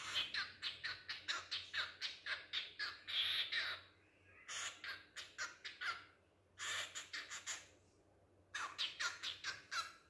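Cockatiel chattering in rapid strings of short chirps, about four a second, coming in four bursts with short pauses between them.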